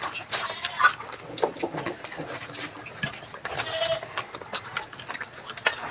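Eating sounds: chewing and scattered small clicks, with a run of about five short, very high chirps in the middle.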